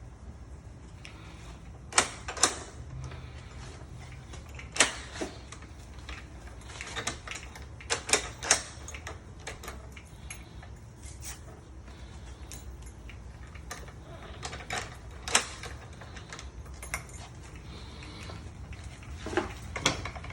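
Irregular sharp metallic clicks and clacks of lock hardware and tools being handled during work on a door lock, over a steady low hum.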